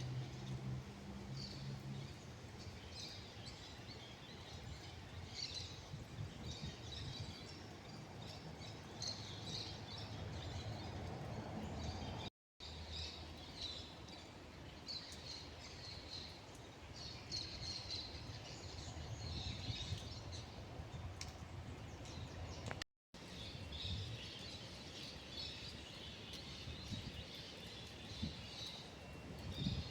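A chorus of small birds chirping and calling, many short high calls overlapping continuously over faint background noise, broken by two brief dropouts.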